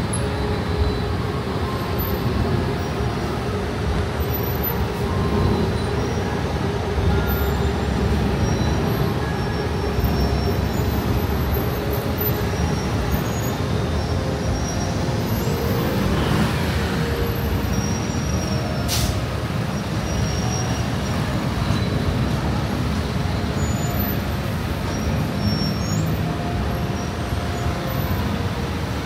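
Dense city road traffic: a steady low rumble of engines and tyres from vehicles passing close by, with a brief sharp hiss about two-thirds of the way through.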